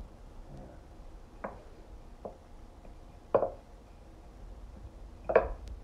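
Scattered knocks and light clatter: four or five separate hits, the loudest about three and a half seconds in and again near the end.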